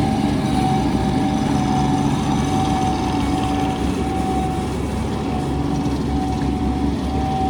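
2020 Bobcat MT85 walk-behind compact track loader's diesel engine running steadily, with a steady high whine over the low engine hum.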